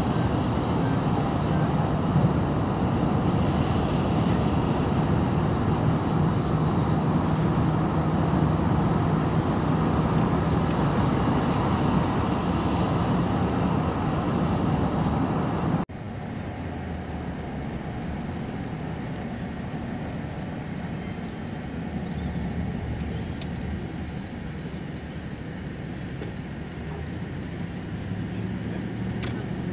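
Steady road noise of a car driving at speed, a rush of tyres, wind and engine with passing traffic. About halfway through it cuts abruptly to a quieter, similar rush.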